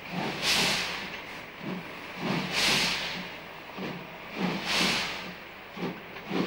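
Steam locomotive pulling away slowly: softer rhythmic exhaust beats, with three loud bursts of steam hissing about two seconds apart as steam blows out low at the cylinders.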